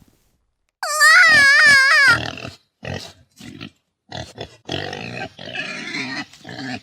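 A pig squealing once, a loud wavering squeal lasting about a second and a half, then a string of short grunts of uneven length.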